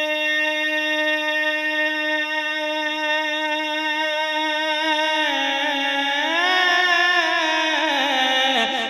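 Unaccompanied male naat singing. One long note is held steadily for several seconds, steps down about five seconds in, slides back up, then breaks into a quavering, ornamented run near the end.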